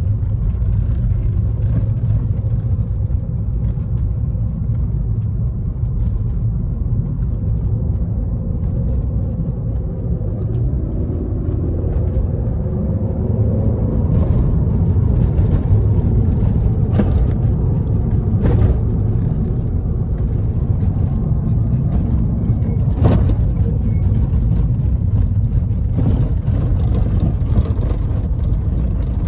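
A car driving: a steady low rumble of engine and road noise, with a few sharp knocks in the second half.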